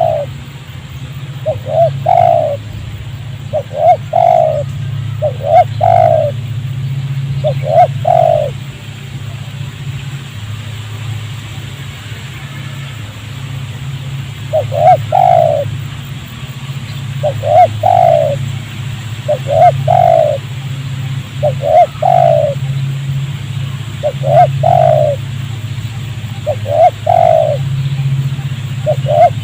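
Spotted dove cooing: short repeated phrases of a few coos each, about one every two seconds, with a pause of several seconds midway. A steady low hum runs underneath.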